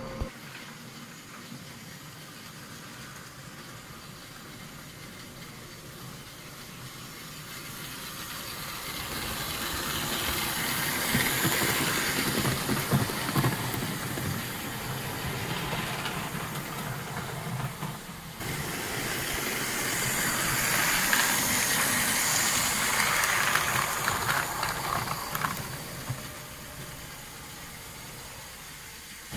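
Rebuilt 1960 American Flyer No. 21089 Washington 4-4-0 S-gauge steam locomotive and its cars running on layout track. The noise of wheels on rail and the locomotive's motor swells twice as the train comes close, with a brief dip in between. It runs freely and quietly on about 9.4 volts, the sign of a freed-up motor with good brush and commutator contact.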